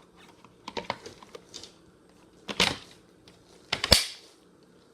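Hard plastic parts of a Hoover Air Cordless Lift vacuum's dust bin clicking as they are handled and fitted back into place. A few light clicks come first, then two sharper snaps, one about halfway and one near the end.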